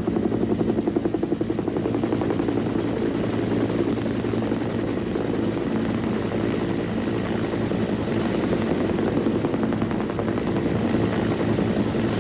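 Sikorsky HRS (H-19) helicopter hovering close by: a steady rotor and engine drone, with fast rotor beats standing out in the first second or two.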